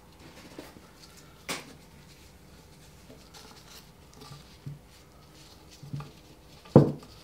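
Soft handling of fibreglass stove rope being pressed by hand into the channel of a stove door, with a few light knocks and a louder thump near the end as the rope and door are handled.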